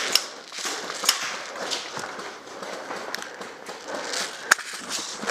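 Footsteps crunching and rustling through undergrowth at an irregular pace, with scattered sharp clicks and one louder crack about four and a half seconds in.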